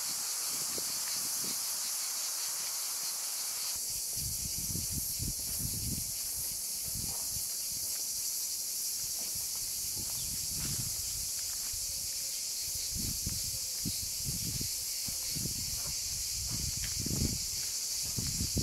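Steady high-pitched chorus of cicadas, with irregular low thuds from about four seconds in.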